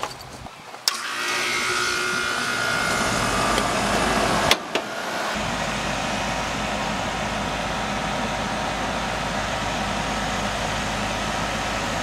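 Goodman air-conditioning condensing unit running, compressor and condenser fan, as a steady mechanical noise with a low hum. It sets in abruptly with a sharp click about a second in, and there is another click and a short dip about four and a half seconds in. The system is running short of R-22 refrigerant charge.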